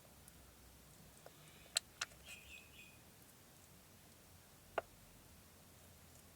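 Quiet room tone with a few faint sharp clicks: two close together about two seconds in and another near five seconds, and a short faint high chirp in between.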